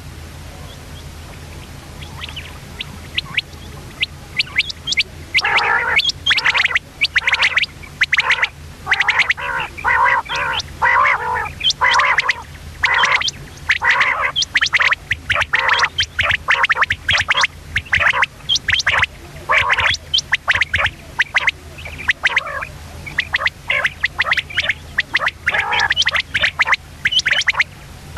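Common quail hen calling: a long, rapid series of short, harsh call notes coming in quick clusters, after a brief lull of a few seconds.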